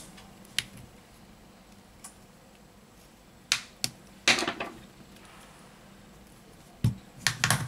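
Scattered sharp clicks and small knocks from a Samsung Galaxy A10 smartphone being handled: a SIM ejector pin pressed into the SIM tray and the tray pulled out, with the phone's body knocking on the work mat. The loudest knock comes about four seconds in, and a quick cluster of clicks comes near the end.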